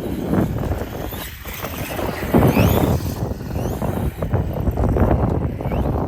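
Brushless electric RC monster trucks driving over dirt and mud, their motors whining up in several short rising revs over rough tyre and ground noise. Wind buffets the microphone.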